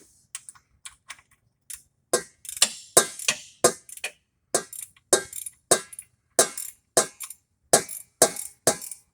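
Ratcheting gear wrench clicking in short repeated strokes, about two or three clicks a second, as a tight fastener is worked loose. The clicks are faint at first and get louder about two seconds in.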